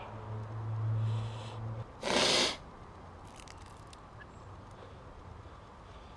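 A man's low, steady moan of pain lasts until nearly two seconds in, with his mouth burning from a Carolina Reaper chilli. It is followed by one short, loud hissing spit as he drools over the grass.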